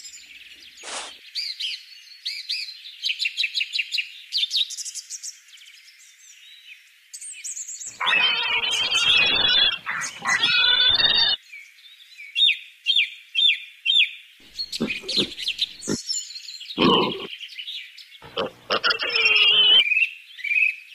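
Birds chirping steadily. About eight seconds in, and again several times near the end, louder rough bursts of an unidentified sound cut in over the chirping.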